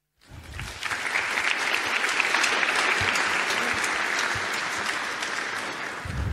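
Audience applauding, rising quickly at the start and slowly tapering off near the end.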